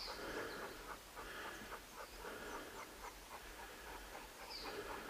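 Heavy panting: rhythmic breaths about once a second.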